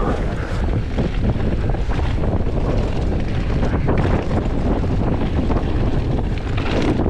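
Wind buffeting a body-mounted action camera's microphone as a mountain bike rides fast down a dirt singletrack, over a steady rumble of tyres on dirt and a stream of small rattling knocks from the bike on the rough ground.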